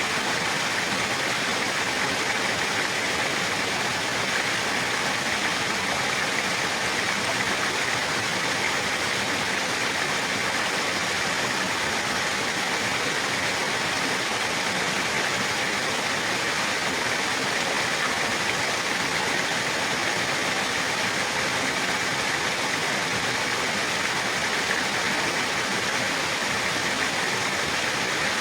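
Flowing water rushing steadily in an even, unbroken hiss, as from a stream or small waterfall.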